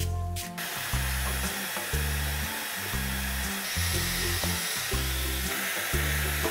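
Steady rushing hiss of a hair dryer running, setting in about half a second in, under background music with a steady bass beat.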